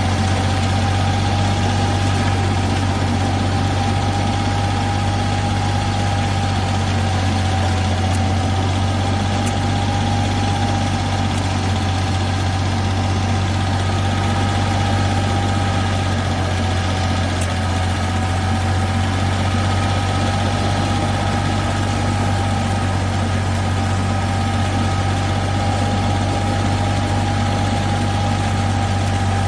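Flail-shaft grass cutter running steadily: a constant low engine hum with a steady higher whine over it, unchanging throughout.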